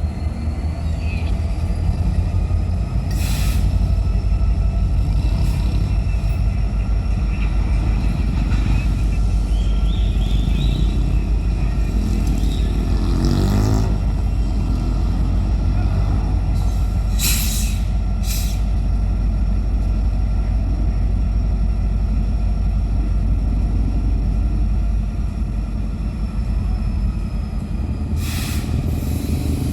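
Diesel freight locomotives running with a heavy, steady low rumble that eases slightly near the end, broken by a few short bursts of air hiss from the air brakes.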